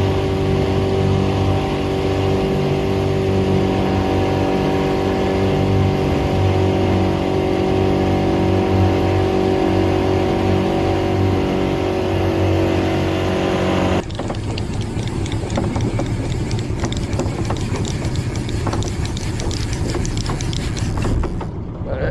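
Boat motor running steadily at trolling speed, with water rushing past the hull. About fourteen seconds in it cuts off abruptly to a rougher wash of wind and water with fine rapid clicks.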